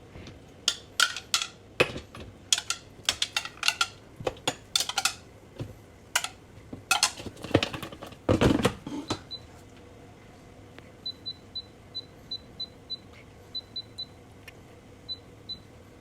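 Clinks and clatters of the turkey being loaded into a metal air fryer basket, with a heavier knock around the middle. Then a series of short, high beeps from the air fryer's control panel as its buttons are pressed to set it.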